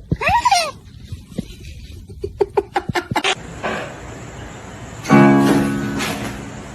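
Acoustic guitar music: a run of quick plucked notes, then a loud strummed chord about five seconds in that rings and fades. A short wavering cry comes just before it at the start.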